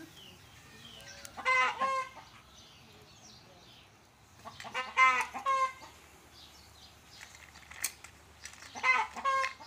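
Animal calls in three short bursts, each a quick run of several pitched notes, spaced a few seconds apart.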